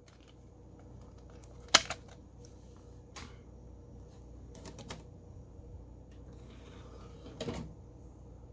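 A few sharp mechanical clicks and knocks, the loudest about two seconds in and another near the end, over a faint steady hum.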